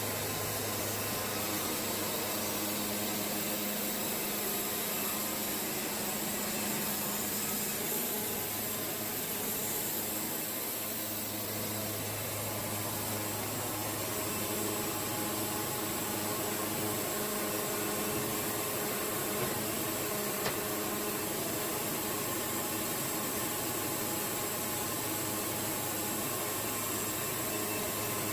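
Wood-Mizer portable band sawmill running steadily, a constant engine hum under a wide even hiss.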